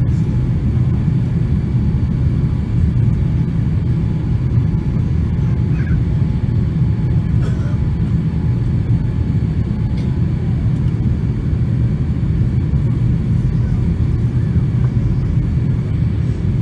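Airplane in flight: a loud, steady low drone with faint steady tones above it.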